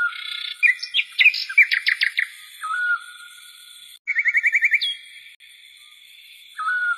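Birds chirping and whistling: a short whistled note repeated about every three seconds, with fast trills of quick chirps in between.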